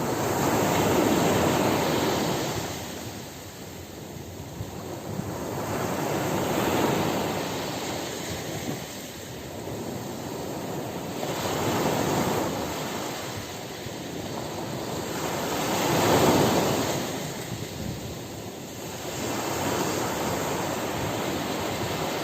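Sea waves breaking and washing onto the shore. Five slow swells of rushing noise rise and fall about every four to five seconds.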